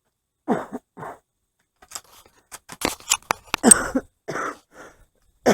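A quick run of sharp metallic clicks and clacks as an old Mossberg .22 rifle is handled and readied, with short breathy, cough-like sounds before and after.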